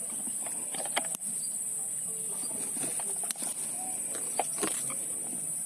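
Steady high-pitched drone of insects, with scattered soft clicks and rustles over it, the sharpest about a second in and just after three seconds.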